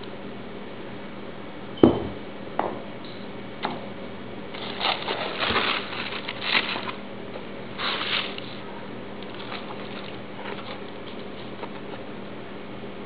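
White tissue paper rustling in a cardboard shoebox as a shoe is handled. The rustling comes in bursts from about four seconds in until about eight seconds. Earlier there is a thump about two seconds in, then a couple of lighter knocks, all over a faint steady hum.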